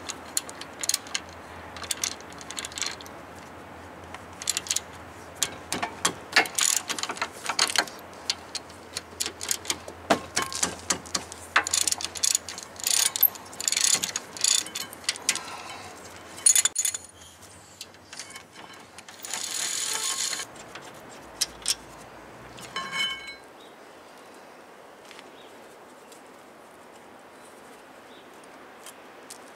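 Hand ratchet clicking and metal tools and brake parts clinking as the rear brake caliper bracket bolts are loosened and worked free: a run of sharp ticks and knocks through the first half. A brief hiss comes about twenty seconds in, then only low background.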